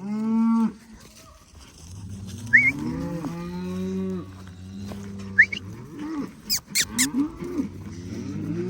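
A group of cattle mooing and bawling, several calls overlapping one another, with a few sharp clicks about two-thirds of the way through.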